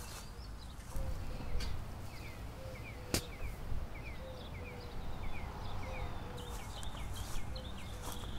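Birds chirping outdoors: repeated short chirps and a lower call that comes back about every second and a half, over a steady low rumble. One sharp click sounds about three seconds in.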